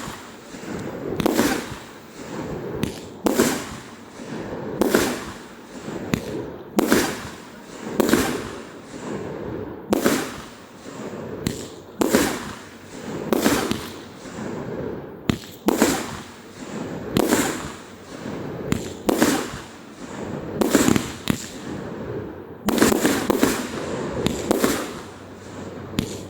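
Fireworks display: aerial shells bursting one after another, a sharp bang roughly every second and a half, each trailing off in an echoing tail, with a quicker run of bangs near the end.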